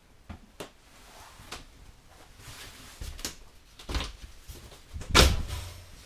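A hinged, framed glass shower door being opened: scattered light knocks and clicks, then a louder bang with a brief ring about five seconds in as the door swings and meets its frame.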